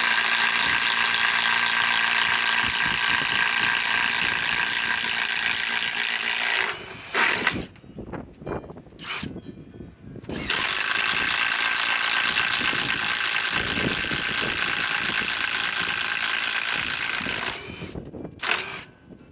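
Master Force Boost cordless impact driver hammering steadily under load while driving a 1-1/2-inch spade bit into wood, in two long runs: one of about seven seconds, then a short pause with a few knocks, then a second run of about seven seconds.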